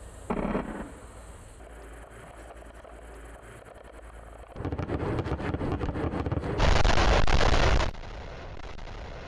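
BM-21 Grad multiple rocket launcher firing a salvo of 122 mm rockets: a rapid, ragged series of launches that merges into a loud, steady rocket roar, cut off abruptly about eight seconds in. A short loud burst comes just after the start.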